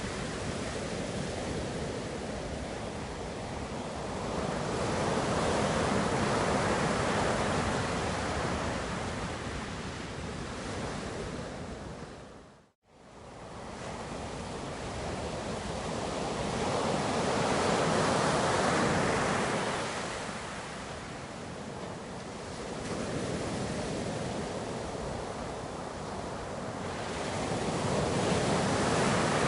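Ocean surf: waves washing in and drawing back, the rush swelling about every ten seconds. The sound dips briefly to silence a little before halfway through, then comes back.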